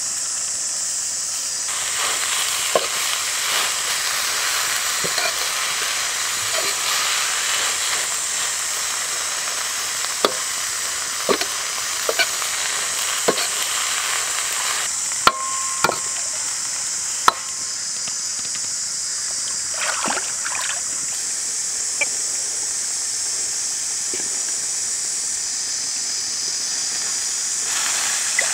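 Vegetables and chicken liver and heart sizzling steadily in a wok as they are stir-fried. A metal ladle knocks and scrapes against the wok at irregular moments.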